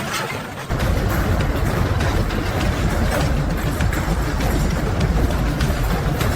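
A heavy mechanical rumble with clatter starts suddenly just under a second in and runs on steadily.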